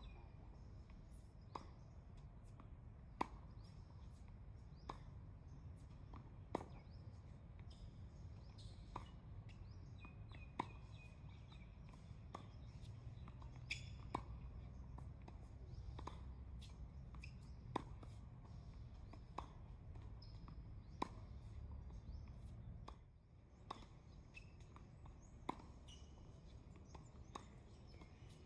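Tennis balls struck by rackets in a rally: sharp pops about every one and a half seconds, with fainter ball bounces between them. A low steady rumble underneath drops away about 23 seconds in.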